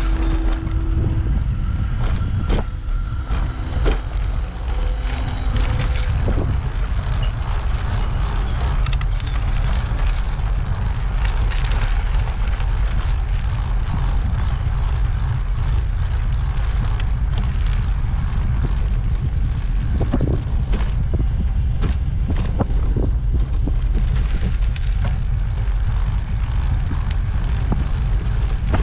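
Wind buffeting the microphone over the steady rolling rumble of an ICE Sprint X 26 recumbent trike's tyres on the path, with scattered short knocks and rattles from the ride.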